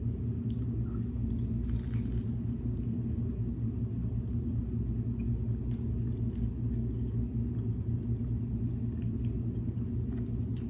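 Steady low hum of an idling car engine heard from inside the cabin, with a few faint clicks.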